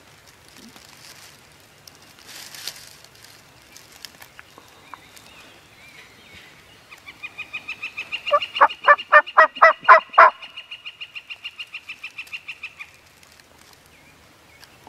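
Wild turkey gobbler gobbling close by: one loud, rapid rattling gobble of about a dozen notes lasting some two seconds. It is set within a longer, higher-pitched string of quick notes.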